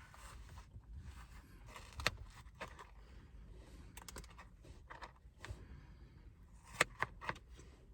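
Scattered small clicks and taps of cutting into a chocolate-covered strawberry with a utensil, with sharper taps about two seconds in and near the end.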